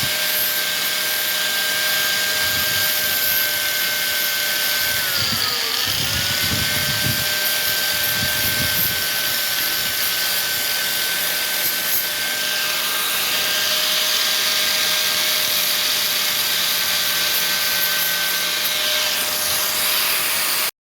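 Angle grinder with a sanding disc running steadily while lightly sanding fiberglass off a bicycle frame, a whine over a coarse hiss. The whine dips in pitch about five to six seconds in, then comes back up.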